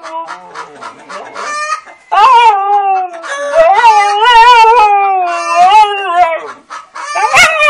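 Husky howling and 'talking' in two long wavering calls, the second one longer, with chickens clucking in the pauses. A short, sharp chicken cry comes near the end.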